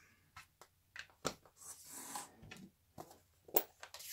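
Light clicks and taps of clear acrylic stamps and stamping supplies being picked up and set down on a craft mat, with a soft rustle about two seconds in and a sharper click near the end.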